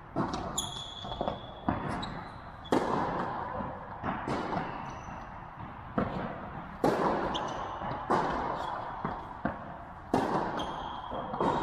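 A tennis rally: the ball struck by rackets and bouncing on the court, a sharp knock about every second, each ringing out in the echo of a large indoor hall, with a few short high squeaks among them.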